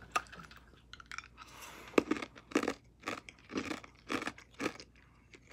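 A person chewing ice cubes from a drink, a run of sharp crunches in the mouth that come about twice a second in the second half.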